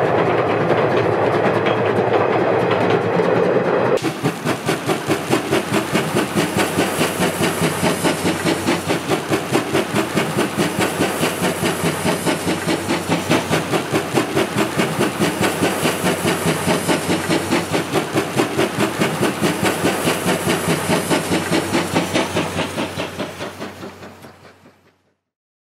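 Steam locomotive C12 66, a JNR Class C12 tank engine: a hiss of steam, then after about four seconds a steady rhythm of exhaust chuffs as it works along, fading away near the end.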